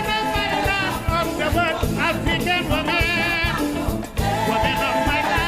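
Music: a solo voice singing long, wavering lines over drums and instruments, with a steady beat.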